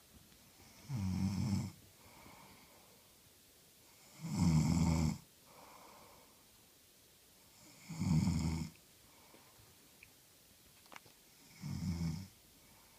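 A woman snoring in her sleep: four loud snores, each under a second long, coming about every three and a half seconds, with a faint breath after each.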